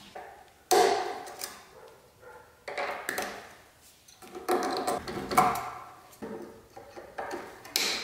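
Hands and tools working at a 2016 Yamaha R6's front brake caliper, handling the safety wire through the pad pins: four or five short bursts of scraping and clicking, the loudest about a second in.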